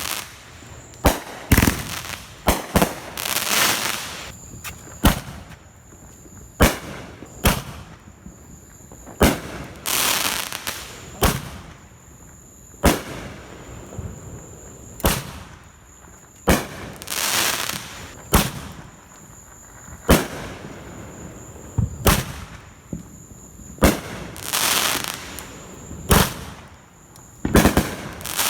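Fireworks going off: sharp bangs every second or two, with longer hissing, crackling bursts every several seconds.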